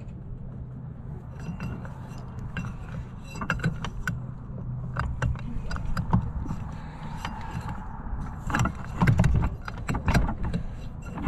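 Small clicks, knocks and rattles of a Suzuki 2.5 hp outboard's propeller and lower unit being gripped and twisted by hand on a propeller that is stuck on its shaft, with wind rumble on the microphone. The knocking is busiest near the end.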